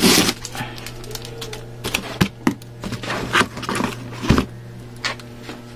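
Clear packing tape being peeled and torn off a cardboard box: irregular crackling rips and clicks, over a steady low hum.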